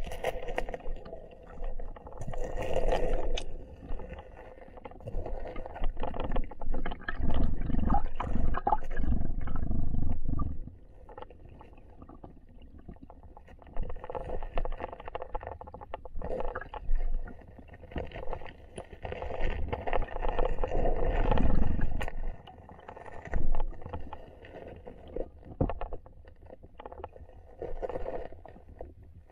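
Muffled underwater rumbling and gurgling of river current around a submerged action camera, swelling and fading irregularly.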